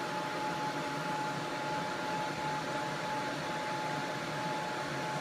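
Chip rework station's top and bottom heaters blowing hot air onto the circuit board: a steady rush of air with a thin, constant whine, while the chip's solder is heated for reflow.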